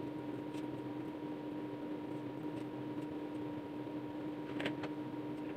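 Steady low hum in a quiet kitchen. About four and a half seconds in come a few faint soft ticks as boiled potatoes are peeled by hand and the skins dropped into a bowl.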